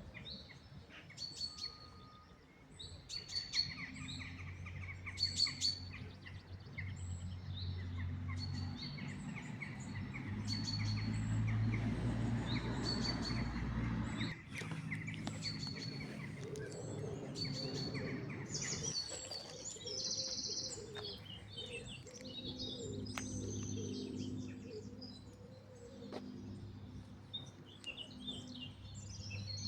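Birds calling in the open: one bird gives a short high chirp about once a second, and later several birds call in quicker, varied notes. A low steady drone runs underneath.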